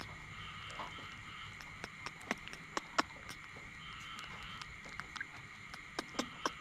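Baby macaque chewing a banana close up: irregular wet smacks and clicks of its mouth, a few louder ones about two to three seconds in and again near the end, over a steady high hum in the background.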